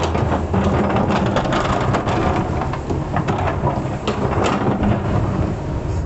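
Kobelco SK200 excavator's engine running under a rough, noisy rumble with many small knocks and clicks, the clatter of the machine working loose material.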